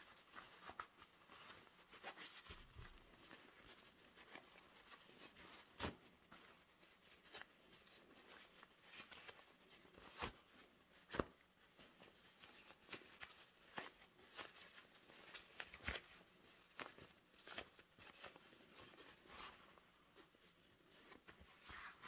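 Faint handling of fabric and sewing materials: soft rustling with scattered light clicks and taps, the sharpest about halfway through.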